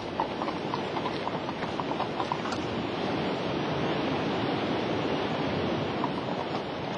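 Rushing white water of a mountain torrent, a steady noise throughout, with hooves clopping on a wooden log bridge during the first few seconds.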